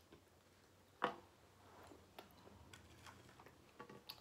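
Faint handling noises of small objects on a tabletop: a sharp click about a second in, then scattered light ticks and taps.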